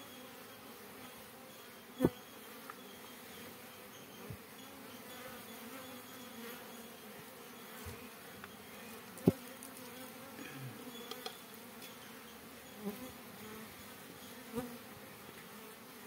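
Honeybees buzzing steadily around an opened hive box. A few sharp knocks cut through the buzzing, the loudest about two seconds in and about nine seconds in, as comb is cut from a wooden frame with a knife over a steel pot.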